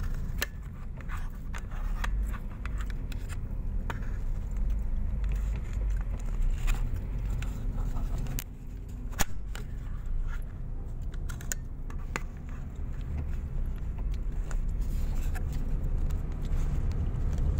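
Low, steady road and engine rumble heard inside the cabin of a moving Honda Mobilio, with scattered light clicks and rattles and one sharper click about halfway through.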